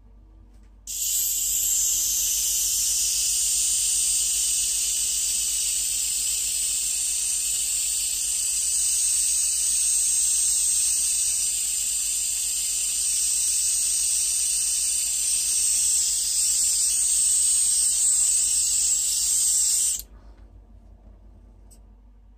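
Airbrush spraying over wet alcohol ink: one steady hiss that starts about a second in and cuts off sharply near the end.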